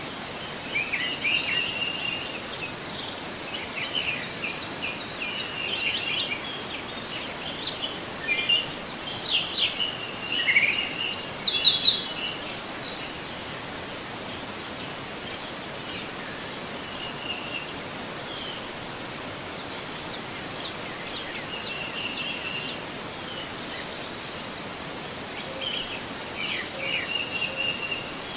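Forest river flowing with a steady rush, with birds chirping and singing over it in bursts, busiest in the first twelve seconds and again near the end.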